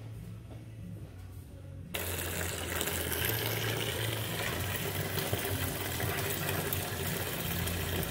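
Engine coolant draining out of the cooling system in a steady rush of pouring liquid, starting abruptly about two seconds in and cutting off sharply at the end, over low background music.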